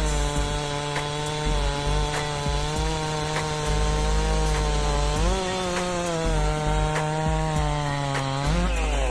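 STIHL 064 single-cylinder two-stroke chainsaw running under load in a cut, its engine held at a steady high pitch. The pitch rises briefly about five seconds in and again near the end.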